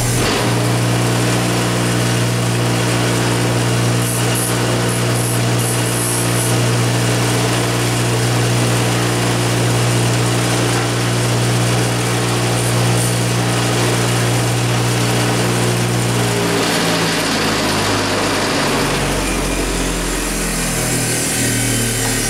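Bench grinder running steadily while the steel tips of snap ring pliers are ground down against the wheel: a constant motor hum under a grinding hiss. About sixteen seconds in the motor hum breaks up and fades as the grinder winds down.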